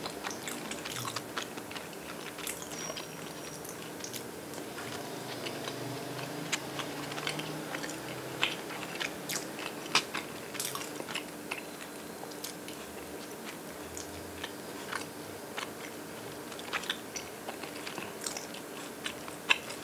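A person chewing a mouthful of egg salad and avocado sandwich: scattered small wet mouth clicks and the crunch of chopped onion, over a faint steady hum.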